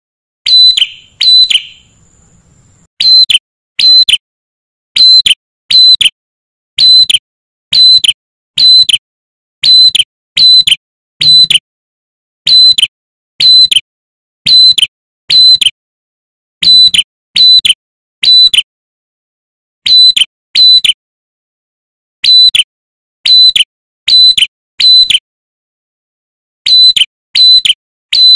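Male tailorbird (prenjak kepala merah) calling loudly and insistently: a long run of short, ringing, high notes, each dipping slightly in pitch, given mostly in quick pairs with brief pauses between the groups.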